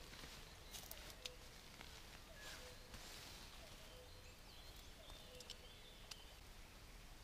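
Near-silent forest ambience: a short low call repeats about every second and a half, with a few faint high bird chirps and some light clicks and rustles from the hammock being handled.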